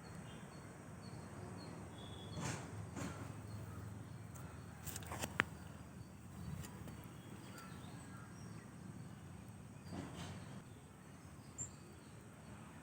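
Faint outdoor background with small high chirps repeating throughout, broken by a few rustles and sharp clicks, the loudest click about five seconds in.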